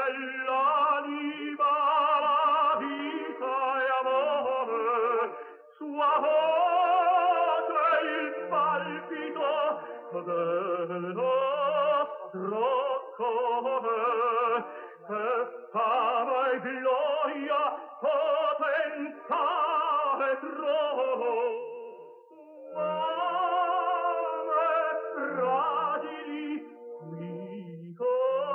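Operatic singing with a wide vibrato, in long phrases with short breaks about five seconds in and near the end.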